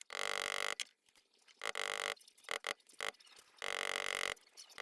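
A small power tool runs in short bursts with a steady whine, starting and stopping abruptly: two bursts of under a second and a few brief blips. It is rounding over a rivet (pin) head on a pocket knife with a concave-ended punch.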